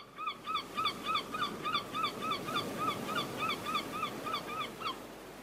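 A bird calling over and over, short arched honk-like calls about three and a half times a second over a steady rushing background; the calls stop about five seconds in.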